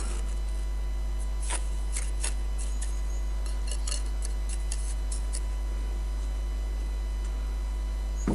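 Scattered light clicks and taps of a mason's trowel against brick and mortar as a brick is pressed and tapped into place in fast-setting cement, most of them in a quick cluster about halfway through, over a steady low hum.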